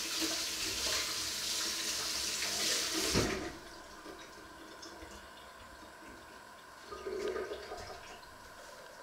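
Kitchen tap running into a stainless-steel sink while something is rinsed under it. The water stops about three seconds in with a low knock, and quieter handling at the sink follows.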